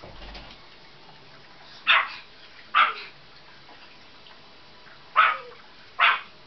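A dog barking off-camera: four short barks in two pairs, each pair about a second apart, with a few seconds between the pairs.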